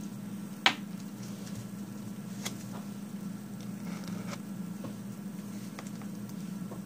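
A sharp click about a second in, then soft taps and scraping as a scraper card drags wet nail polish across a metal stamping plate, over a steady low hum.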